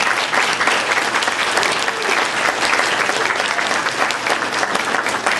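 Audience applauding: many hands clapping in a dense, steady stream of claps.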